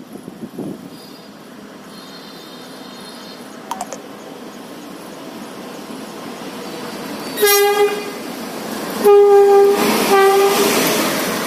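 WAP-7 electric locomotive approaching and passing, sounding its horn: a short blast about seven and a half seconds in, then a longer blast and a short one as it comes level. Under the horn, the rumble and rush of the train grows louder as it nears.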